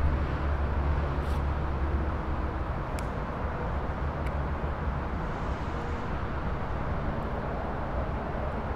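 Steady low rumble and hiss of outdoor background noise, strongest in the first couple of seconds, with a couple of faint clicks.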